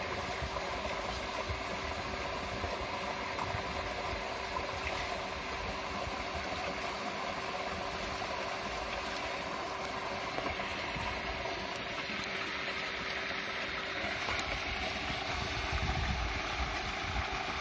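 Steady running hum of a 3 HP solar submersible pump set, its controller drive close by: a steady tone over an even rushing noise that swells slightly near the end.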